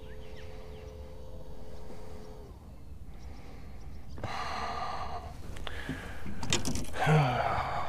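A man breathing out heavily twice, as in frustrated sighs, with a few sharp clicks of handling between them. A steady hum stops about two and a half seconds in.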